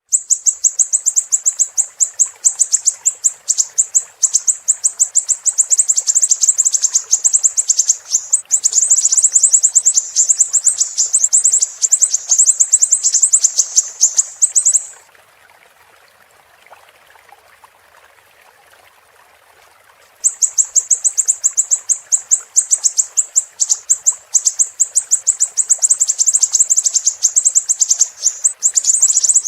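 Siri-siri bird singing: a loud, very fast, high-pitched run of repeated chattering notes that breaks off about halfway for some five seconds, then starts again. Faint running water sounds underneath.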